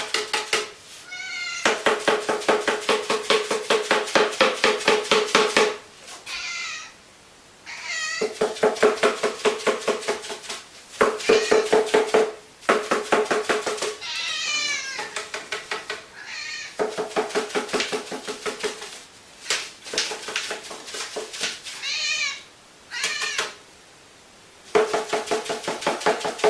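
Empty cardboard tube rapidly and repeatedly tapped against a cat, giving a hollow, pitched drumming in five bouts of a few seconds each. A domestic cat meows several times in the pauses between the bouts.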